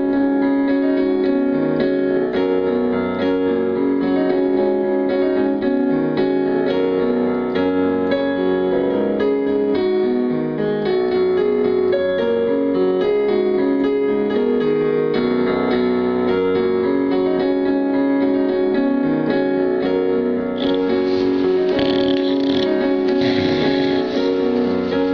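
Background piano music, notes changing steadily throughout. In the last few seconds a hiss-like noise joins the music.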